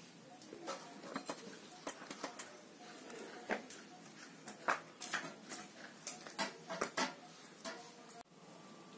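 A folded paper leaflet being handled and unfolded, giving an irregular string of short, sharp crinkles and crackles. The sound cuts off abruptly near the end.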